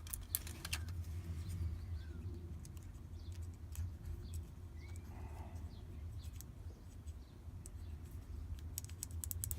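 Small metal clicks and taps from a padlock and its key being handled during disassembly, scattered throughout and bunched near the end, over a steady low hum.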